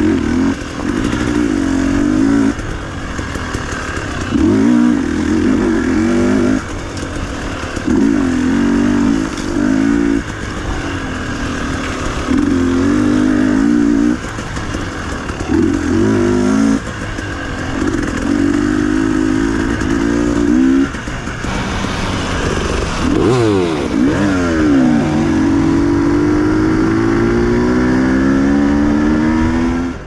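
Dirt bike engine revving in repeated throttle bursts every second or two, then its pitch sweeping up and down and climbing steadily near the end as the bike accelerates.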